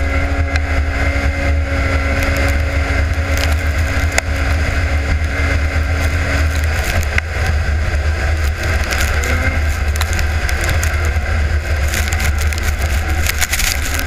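Polaris racing snowmobile running hard at speed, heard from the rider's helmet, with a steady engine note for the first half and a continuous low rumble of wind on the microphone.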